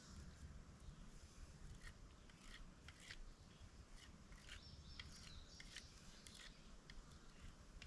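Faint, irregular scrapes and snicks of a pocket knife stripping leaves from a horseweed stalk.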